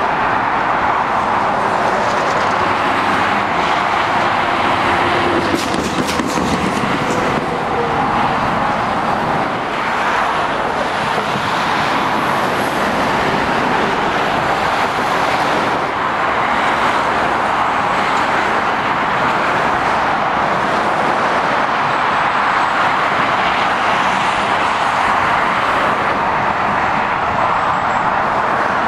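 Continuous traffic noise from lorries and cars passing on the road below, mostly a steady hiss of tyres with engines mixed in.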